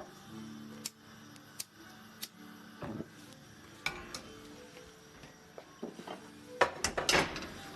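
Kitchen clatter: scattered clicks and knocks of pots and utensils being handled, with a louder run of knocks near the end, over faint background music.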